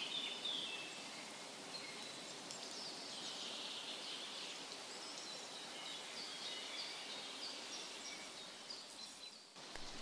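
Birds chirping and singing faintly over a steady quiet outdoor hiss.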